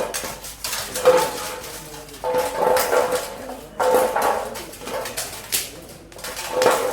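A heavy knife or cleaver chopping fish on a cutting block, one stroke about every second or so, each with a short ring.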